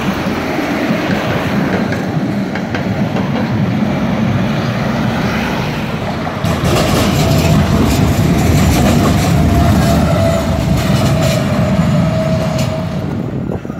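A tram running on its rails, getting louder about halfway through, with a run of clicks and a thin steady high tone over the rumble. The sound drops away near the end.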